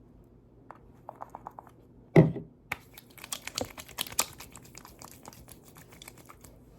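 Handling noise: a few light clicks, one thump about two seconds in (the loudest sound), then roughly four seconds of rapid clicking and crinkling that stops shortly before the end.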